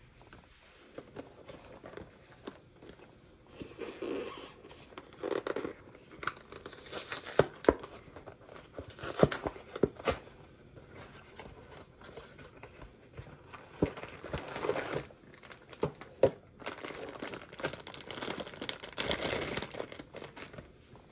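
Packaging of a boxed pancake mix being torn open and crinkled by hand, in quiet, irregular rustles and crackles with scattered sharp clicks.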